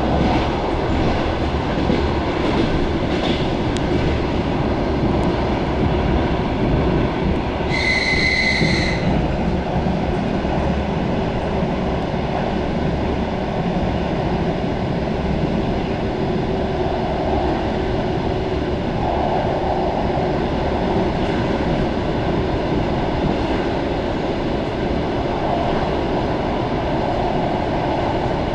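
Electric commuter train running at speed, heard from inside the carriage as a steady rumble. About eight seconds in, a brief high-pitched tone sounds for about a second.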